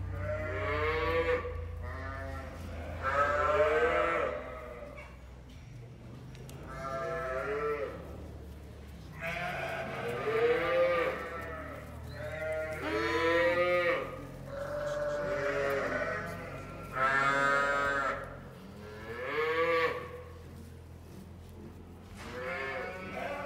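Young lambs bleating, about ten high, quavering calls from several animals, some overlapping, over a faint steady low hum.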